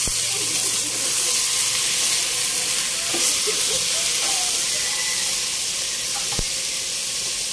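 Beef and tripe pieces sizzling in hot oil in a stainless steel pot, sautéed and stirred with a spatula. One sharp knock about six seconds in.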